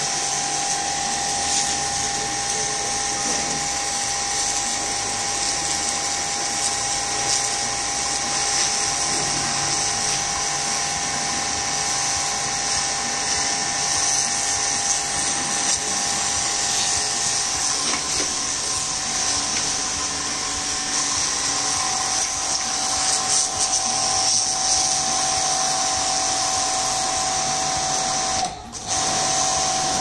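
Starq W3 1800W electric pressure washer running steadily, its motor giving a high, even whine over the hiss of the water jet spraying the ground. The sound drops out briefly just before the end.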